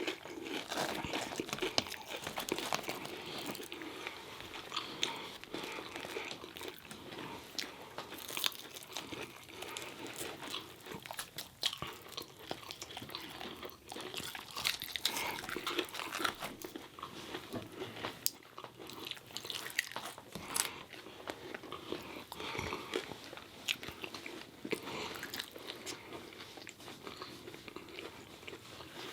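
Close-up eating sounds: crunchy biting and chewing of fried chicken tenders, fries and bread, with irregular crunches and mouth noises.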